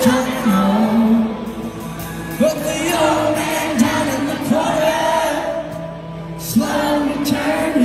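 Live band music: a male singer sings long held notes over electric guitar and band backing, with short breaks between lines.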